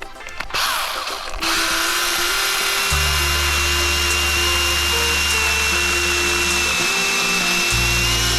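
Makita 18V cordless brush cutter motor spinning up about a second in, then running at a steady high whine with a hiss, over background music with a held bass line.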